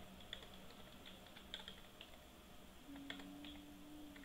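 Faint typing on a computer keyboard: scattered single keystrokes as code is entered.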